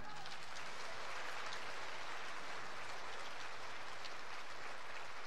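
Theatre audience applauding steadily after the orchestra's final chord.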